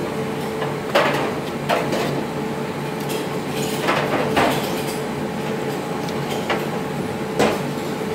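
A metal spoon scraping and knocking against a clay bowl as bamboo-shoot salad is scooped out onto a plate, with five short scrapes about 1, 1.7, 4, 4.5 and 7.5 seconds in. A steady hum runs underneath.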